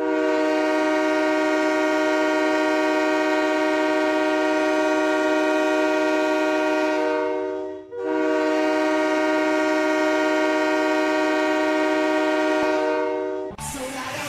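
Hockey arena goal horn sounding two long, steady blasts of several notes at once, each about seven and a half seconds long with a short break between them. It cuts off just before the end as goal-song music starts.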